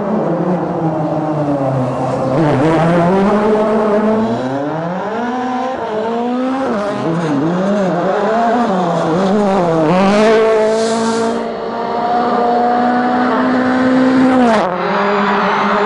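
Rally car engine at full throttle, its pitch climbing and dropping again and again through gear changes and throttle lifts, with quick up-and-down swings of the revs in the middle and a sudden fall near the end.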